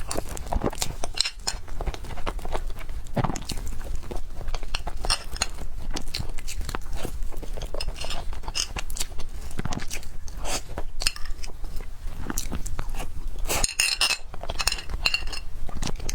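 Close-miked chewing and biting of cake, wet and crackly, with small clicks and clinks of cutlery on a plate throughout.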